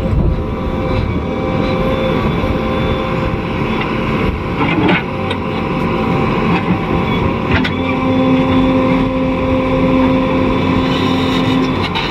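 JCB 3DX backhoe loader's diesel engine running steadily at working revs. A few sharp knocks come through, about five seconds in, near the middle and near the end. A steady low tone joins for about four seconds in the second half.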